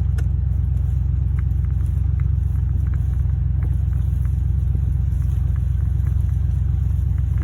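A vehicle engine running steadily, a constant low rumble with a few faint ticks over it.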